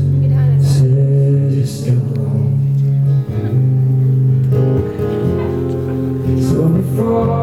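Live band music: guitar and bass playing a song, with some singing.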